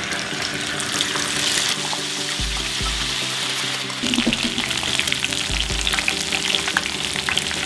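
Boiled guajillo and ancho chili pieces frying in hot canola oil in a saucepan: a steady sizzle that turns more crackly about halfway through, spitting from the water still left on the chilies.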